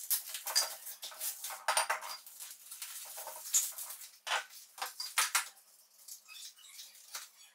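Metal desk-leg tubes and small hardware clinking and knocking together as they are picked up and handled, with brief metallic rings; the clatter thins out in the last couple of seconds.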